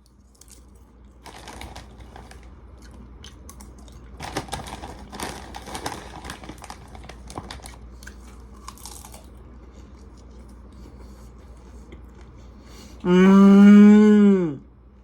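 Someone chewing crunchy popcorn, irregular crunching for several seconds. Near the end a loud, steady-pitched hummed "mmm" of approval lasting about a second and a half.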